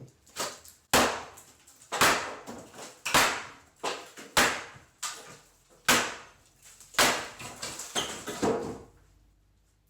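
Repeated blows of a hand demolition tool breaking out a wall: about ten hard hits at uneven intervals, roughly one a second, each trailing off briefly.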